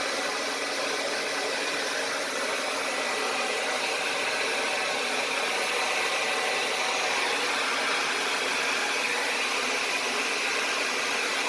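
Handheld blow dryer running steadily: a constant rush of air with a faint high whine.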